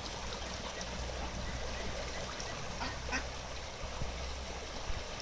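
Ducks quacking, two short calls about three seconds in, over the steady rush of stream water spilling over a small weir.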